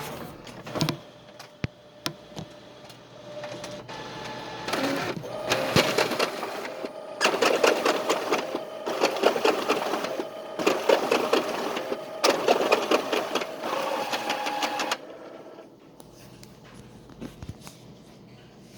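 An HP OfficeJet Pro X451/X476-series printer running a print or copy job with a fast mechanical clatter. The clatter comes in loud bursts for about ten seconds, then stops. The noise comes from the front encoder disc belt, which has slipped off its place.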